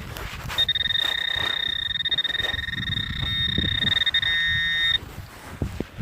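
Metal detector giving a continuous high-pitched buzzing alert tone, signalling metal close by; it starts about half a second in and cuts off suddenly near the end, over low rumbling handling noise.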